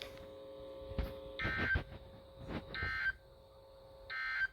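NOAA Weather Radio SAME end-of-message data tones: three short, raspy electronic bursts about a second apart, the digital signal that closes a special marine warning. A faint steady hum lies underneath.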